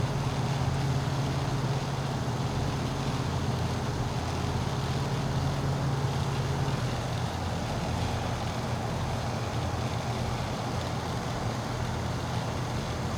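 Diesel-powered freight train passing: a steady low engine drone over even running noise, the drone dropping in pitch about seven seconds in.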